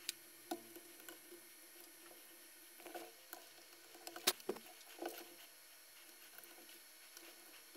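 Light, scattered clicks and taps of a circuit board and soldering iron being handled while electrolytic capacitors are desoldered from a power supply board. The sharpest click comes about four seconds in, as a capacitor is pulled free.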